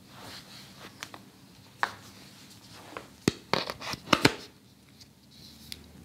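Handling noise: scattered clicks and knocks, with a quick run of several sharp ones about three to four seconds in.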